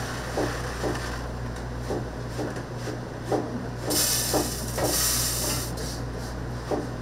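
Kitchen cooking sounds: regular short knocks about twice a second, with a burst of hissing about four seconds in that lasts under two seconds, over a steady low hum.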